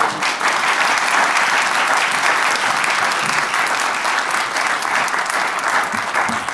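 Audience applauding: many hands clapping together in a dense, steady patter, easing slightly near the end.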